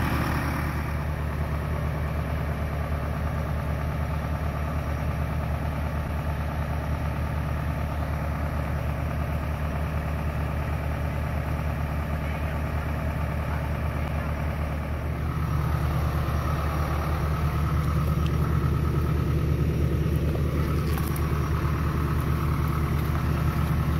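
Farm tractor's diesel engine running steadily at a low idle, growing somewhat louder about two thirds of the way through.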